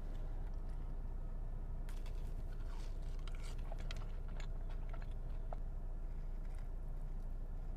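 Close-miked chewing and biting of crunchy food, with irregular sharp crunches and crackles from about two seconds in over a steady low hum.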